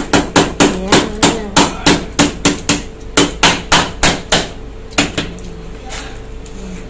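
A fast run of hard knocks, about three a second for some four and a half seconds, then a short pause and two more. Each blow leaves a brief ringing tone.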